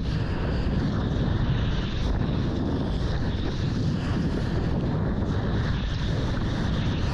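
Wind buffeting an action camera's microphone over rushing sea water and surf, a steady low rumble.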